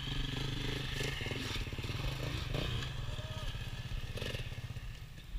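Dirt bike engine idling with a fast, even pulse, fading away near the end.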